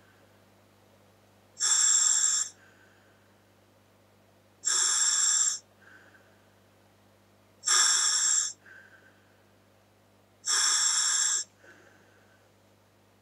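Scuba regulator on a Dräger full-face mask hissing with each breath drawn through it. There are four breaths about three seconds apart, each hiss lasting about a second, and each is followed by a much softer short puff.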